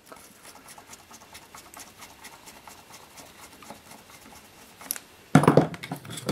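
Screws being undone and a metal cover being worked loose on a Soviet avionics punch card reader: faint scratching and small ticks, then a sharp click, and about five seconds in a loud metallic clatter as parts are handled.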